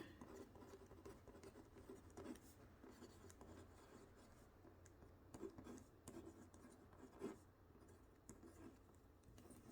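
Faint scratching of a Kuru Toga mechanical pencil's graphite lead writing on paper, in short strokes with small pauses.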